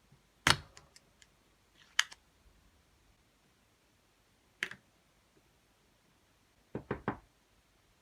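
Sharp clicks and knocks of hard plastic keyboard parts being handled and set down. There are single ones about half a second in, at two seconds and midway, then a quick run of three near the end.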